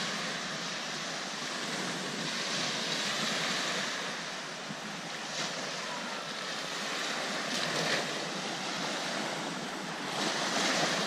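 Small lake waves washing onto a sandy shore, swelling and easing every few seconds, with wind.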